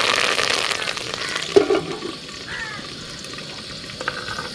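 Curry leaves spluttering in hot oil for a tempering, with loud crackling sizzle that dies down to a softer sizzle after about two seconds. One short, louder sound comes about a second and a half in.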